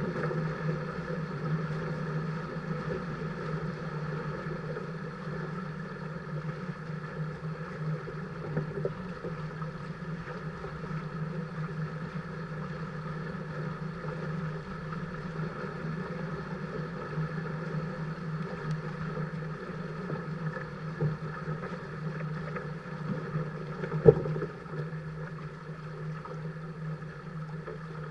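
Steady rush of wind and water on a small sailing catamaran under way, even in level throughout, with one sharp knock about 24 seconds in.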